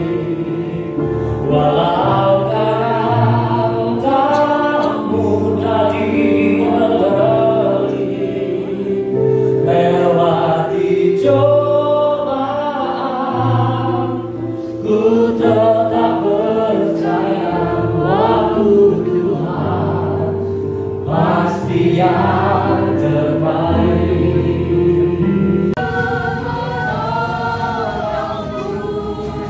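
Christian worship song in Indonesian: a lead singer on a microphone through the hall's sound system, over held bass and keyboard chords from a small band. The sound changes abruptly near the end.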